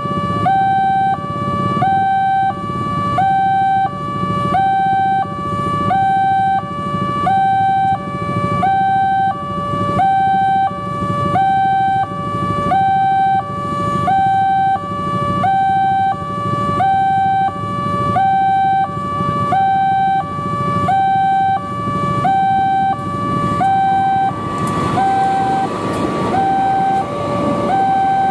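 Railway level-crossing warning alarm sounding a continuous electronic two-tone chime, high and low tones alternating in an even cycle about every 1.3 seconds, over steady street traffic. From about 25 seconds in, a passenger train passing the crossing adds a broad rushing rumble under the alarm.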